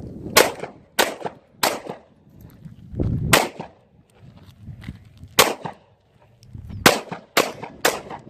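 Pistol shots, eight in all, fired singly at an uneven pace, with gaps from about half a second to two seconds, each ending in a short echo.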